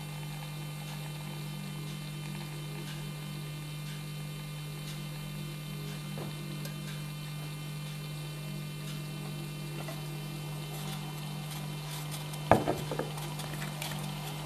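Steady low electrical hum, with a single sharp knock about twelve and a half seconds in and faint scattered clicks near the end.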